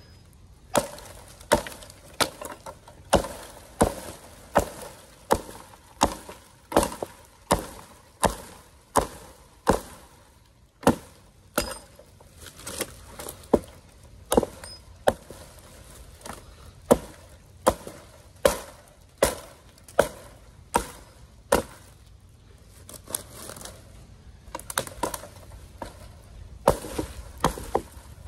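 Adler Rhineland hatchet, a C60 steel head on a hickory handle, delimbing a felled conifer: a steady run of sharp chops into the branches, about one every three-quarters of a second. In the last few seconds the chops turn lighter and irregular.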